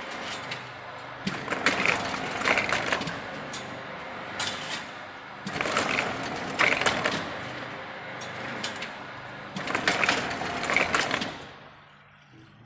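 Chain link fence weaving machine running a test cycle: steady mechanical running with metallic clattering that swells three times, about four seconds apart, then winds down and stops near the end.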